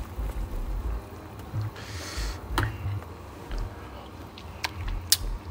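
A metal ladle stirring in a frying pan of simmering broth, with a few sharp clinks against the pan and a short hiss about two seconds in, over a low rumble.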